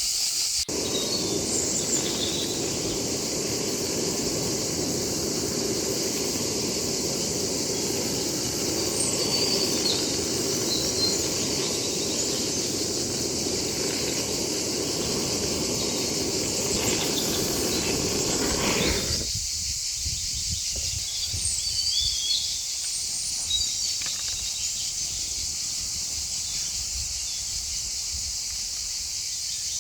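Outdoor ambience: a steady high-pitched insect drone with scattered short bird chirps. Under it a lower rushing noise runs until it cuts off abruptly about two-thirds of the way through.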